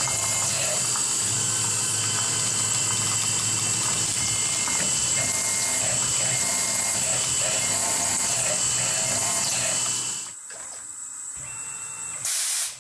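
Tormach PCNC 1100 CNC mill's spindle running as an end mill cuts an aluminum plate under coolant spray: a steady high whine with a cutting sound that swells and eases in a repeating pattern. About ten seconds in the cutting stops and the sound drops, and a short loud hiss follows near the end.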